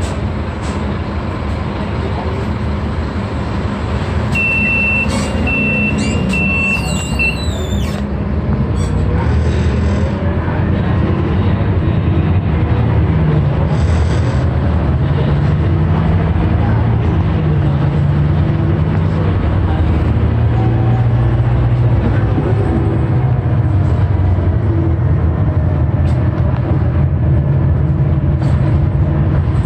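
TransJakarta city bus engine running with a steady low drone that grows louder and shifts in pitch about ten seconds in as the bus picks up speed. Near the start a short high electronic beep sounds about four times in a row.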